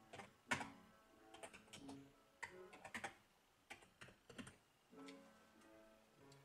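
Quiet, irregular clicks of computer keyboard keys being pressed, the loudest about half a second in, over faint background music with plucked guitar notes.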